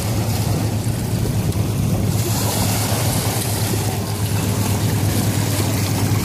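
Small waves lapping and water splashing around a puppy wading in the shallows, with wind on the microphone and a steady low hum underneath. The splashing grows brighter for a couple of seconds in the middle.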